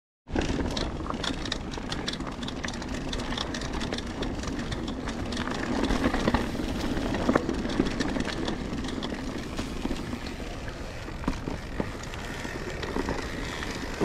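Mountain bike rolling along a dirt singletrack strewn with leaves: a steady rumble of tyres on the ground with frequent sharp clicks and rattles from the bike.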